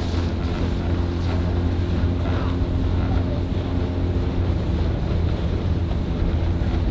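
Outboard engine of a motor launch running steadily alongside the rowing eights, a low hum, with wind buffeting the microphone.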